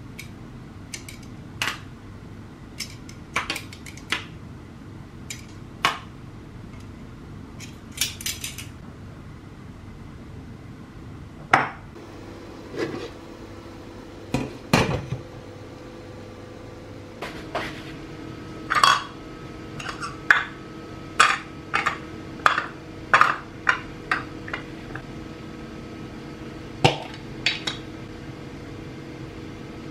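Kitchen dishes and utensils clinking and knocking: a plate, a bowl and a glass lid going into and onto a stainless steel steamer. The sharp knocks are scattered at first and come thick and fast in the second half.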